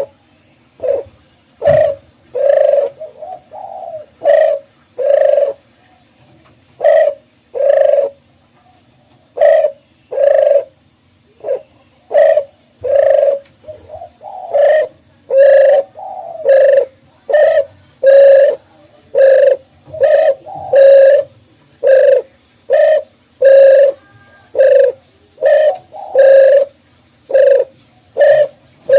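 Dove cooing in a long, rapid, rhythmic series of short coos, roughly one and a half a second, with a faint steady high whine underneath.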